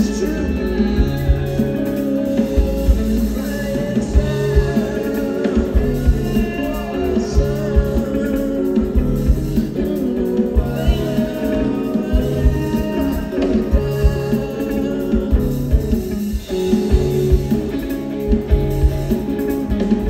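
A rock band playing live: a repeating bass line and a steady drum beat under guitar, with a sung vocal line that rises and falls.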